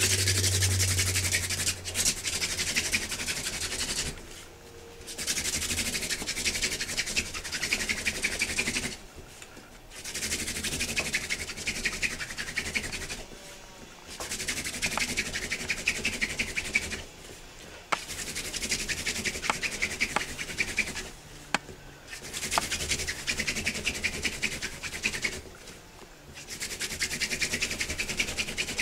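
Mullein-stalk hand-drill spindle spun between the palms, grinding into a basswood hearthboard with a rough, fast rubbing hiss. It comes in about seven passes of three to four seconds each, with short breaks where the hands move back up the spindle, as friction builds hot dust toward a coal.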